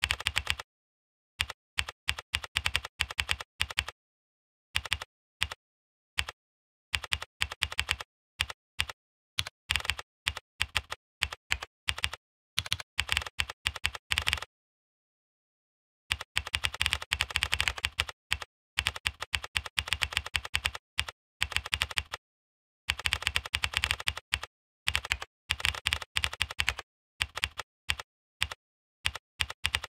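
Typing on a computer keyboard: rapid key clicks in bursts, with short pauses between them and a longer pause about halfway through.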